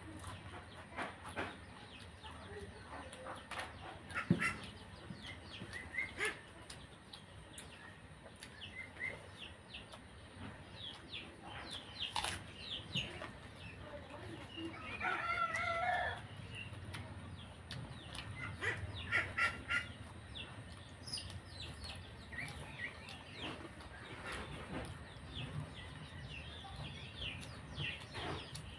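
Mouth sounds of eating rice and curry by hand, small wet clicks and smacks throughout, over chickens clucking in the background. A rooster crows once about halfway through.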